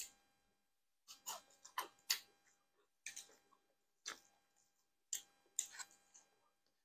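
Close-miked mukbang eating sounds: a sharp clink at the start, then clusters of wet chewing and smacking clicks about once a second.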